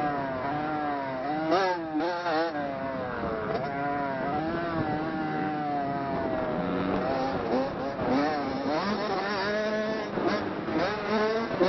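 Motocross dirt bike engine revving hard, its pitch climbing and dropping again and again, holding steadier for a couple of seconds around the middle.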